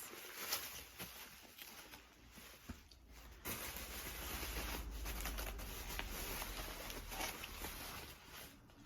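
Plastic bubble wrap rustling and crinkling with scattered small clicks as books are unwrapped, louder and steadier from about three and a half seconds in until near the end.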